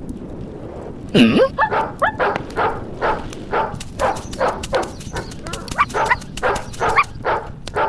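A dog barking over and over, about three barks a second, starting about a second in with a rising yelp.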